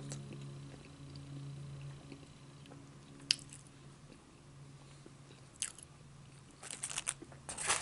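A person chewing a mouthful of BBQ boneless chicken wing close to the microphone. A few sharp clicks come from the metal fork near the end.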